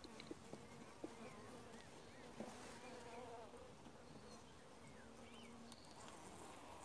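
Honeybees humming faintly over an open hive, with a few light clicks as a metal frame grip takes hold of a wooden frame.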